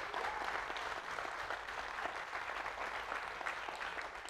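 Congregation applauding: a steady clapping of many hands.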